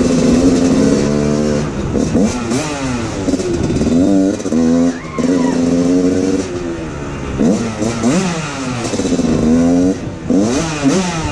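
Dirt bike engine revving hard, its pitch climbing and dropping back again and again as it is ridden and accelerated.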